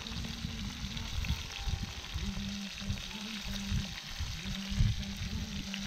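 Corn-flour-coated perch fillets frying in oil in a skillet over a campfire: a steady sizzle, with a low hum coming and going underneath.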